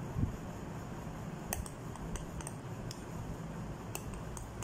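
Spoon stirring thick banana and yogurt puree in a bowl, with a few light, scattered clicks of the spoon against the bowl.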